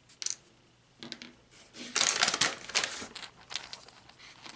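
Paper bag rustling and crinkling as a plastic surprise egg is pulled out of it, with a few light plastic clicks. The rustling is loudest about two to three seconds in.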